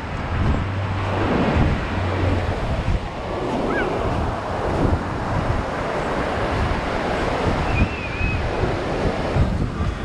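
Ocean surf breaking and washing up the beach, swelling and easing in waves, with wind rumbling on the microphone.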